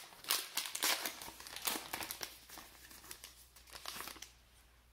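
Foil wrapper of a 2012 Topps Gypsy Queen baseball card pack crinkling in the hands as it is handled and opened, in irregular bursts that are densest in the first two seconds and sparser after.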